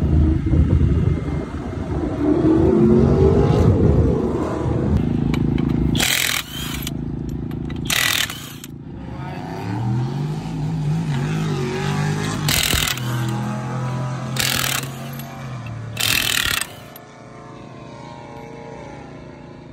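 A car engine running and revving: loud, with a rising rev in the first few seconds, then wavering and settling to a steadier run. Five short, loud bursts of noise break in along the way, and the sound drops much quieter near the end.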